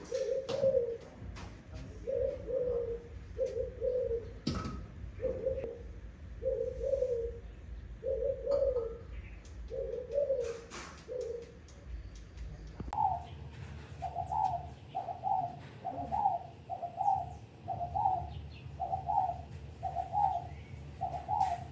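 A bird giving a long series of short low coos, unevenly spaced at first. Then, after a break, a higher series comes at an even pace, about three coos every two seconds.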